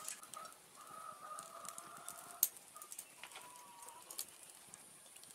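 Faint drawn-out calls of a domestic chicken, one long note near the start and a shorter one a little past the middle, with a few light clicks.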